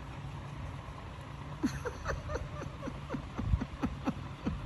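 Chow Chow puppy giving a run of short, falling whines and yips while play-biting a hand, starting a little under two seconds in.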